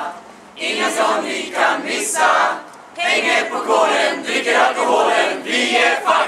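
A group of a few dozen voices performing a cheer together in unison, in loud rhythmic phrases that break off briefly twice.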